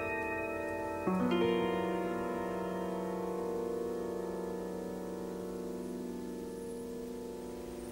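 Soft piano music: a chord struck about a second in, held and left to ring and slowly fade.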